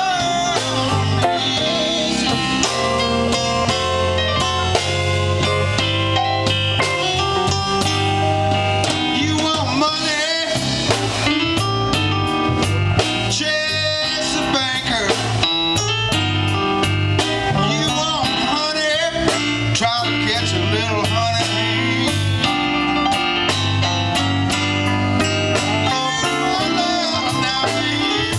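Live blues band playing, with electric bass guitar, keyboards, drum kit and electric guitar.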